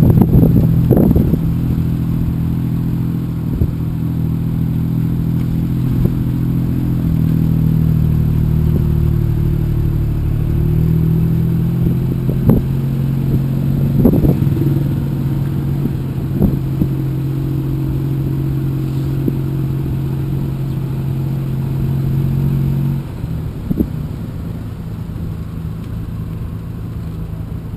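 Tuk tuk's engine running steadily while under way, heard from on board, with a few knocks and rattles in the middle. About 23 seconds in the engine note drops and the sound gets quieter as it eases off.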